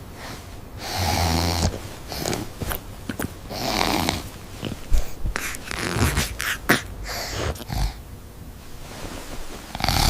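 A man snoring in several long rasping snores, the loudest about a second in and near four seconds, with short sharp knocks and rustles between them.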